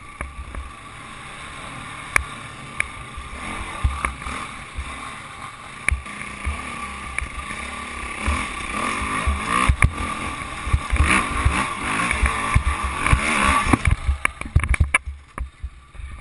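Enduro motorcycle engine running as the bike rides over a rough, bumpy dirt trail, with many short knocks and clatter from the bumps. The knocks come thicker and louder through the second half, and the sound drops away right at the end.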